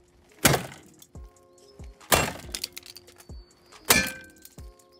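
Three hard blows against a Honda Civic's rear corner, about half a second, two seconds and four seconds in, the plastic taillight lens cracking and breaking apart, over background music.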